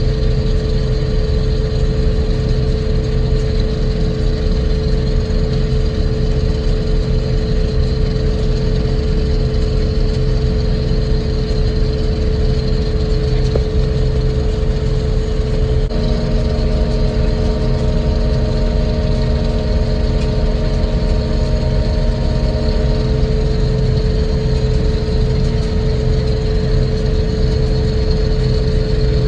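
Combine harvester running while cutting soybeans: a steady engine drone with several whining tones from the machinery. About halfway through, an extra whine joins.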